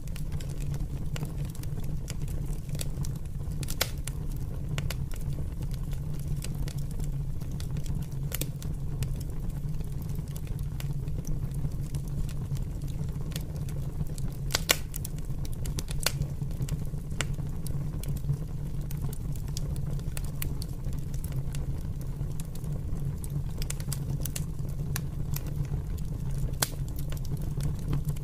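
Open fire burning with irregular crackles and pops over a steady low rumble. One sharp pop stands out about halfway through.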